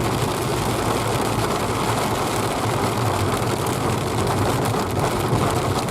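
Car driving in a rain storm, heard from inside the cabin: a steady engine hum and wet-road noise.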